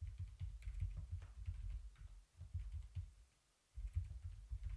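Computer keyboard being typed on: soft key clicks in quick runs with short pauses, each stroke carrying a low thud, as a password is typed and entered.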